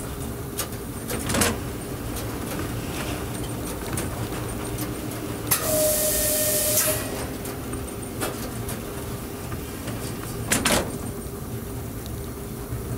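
Electric train running on the rails, heard from the driver's cab: a steady rumble and hum, with two sharp knocks, one early and one about two thirds through. Near the middle, a loud hiss about a second and a half long, with a thin steady tone in it, cuts in and stops.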